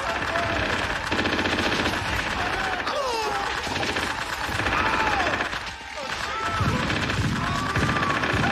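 Sustained automatic gunfire, a dense rapid rattle of machine-gun fire, with short gliding high tones over it.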